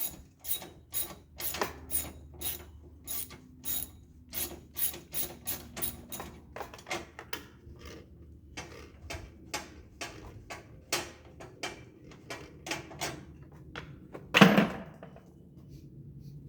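Hand ratchet wrench clicking in a steady rhythm, about two clicks a second, as a bolt is worked loose, the clicks thinning out later; one loud clunk about fourteen seconds in.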